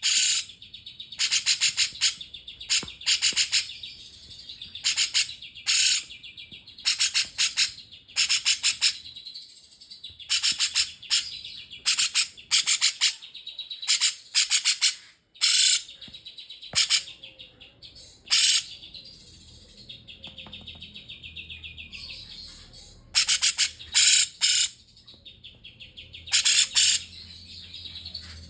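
A cungkok songbird singing in repeated bursts of rapid, high chirping notes, each burst under a second long, with short pauses between them. The song is in the style of a cucak jenggot.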